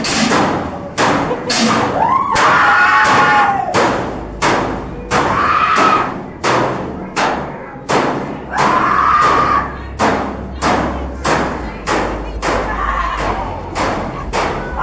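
A steady pounding beat from a scare attraction's sound system, about three heavy thumps every two seconds, with wailing tones rising and falling over it.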